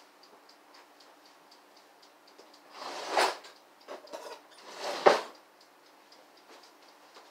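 Faint, steady mechanical ticking, several ticks a second. Two louder scuffing noises break in about three and five seconds in, each swelling for about half a second.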